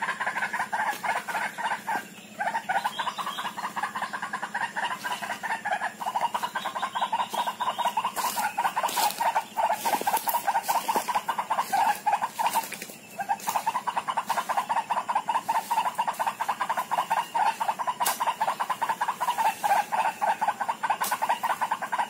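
A bird's rapid clucking call, repeated steadily over and over, with short breaks about two seconds in and again about thirteen seconds in.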